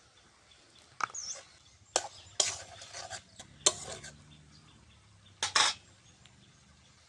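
Kitchen utensils and pots clattering: a handful of separate sharp metallic knocks, some with a short ring.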